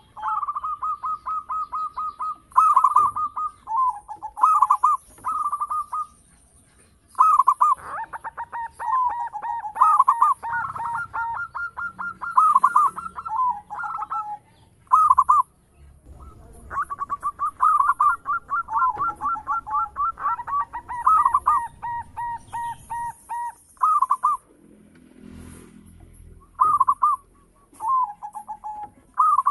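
Zebra dove (perkutut) cooing: phrase after phrase of quick, stuttering rolled notes, with a few brief pauses between songs.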